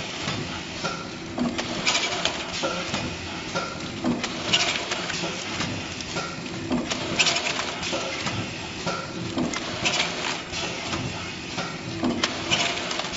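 Automatic multi-lane stick bag packing machine running in its repeating cycle. A sharp clattering burst comes about every two and a half seconds, with lighter clicks and knocks in between.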